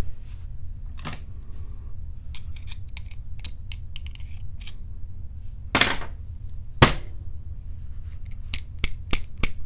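Irregular small metal clicks and clinks of tools and parts being handled on a padlock, with two sharper clinks about six and seven seconds in and a quick run of clicks near the end, over a steady low hum.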